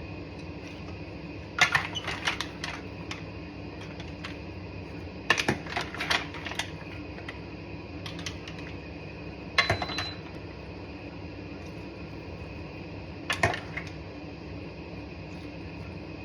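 Cooked mussels clattering, their shells clinking against each other and the pot or dish in four short bursts of sharp clicks, over a steady background hum.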